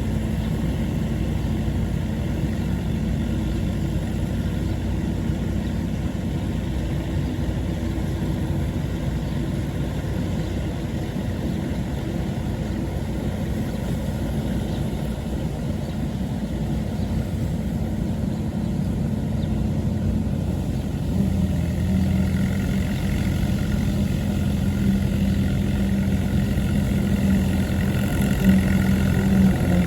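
Allis-Chalmers WD45 tractor engine running steadily, most likely pulling a PTO-driven All-Crop 72 combine. About two-thirds of the way through, the engine note grows louder and fuller.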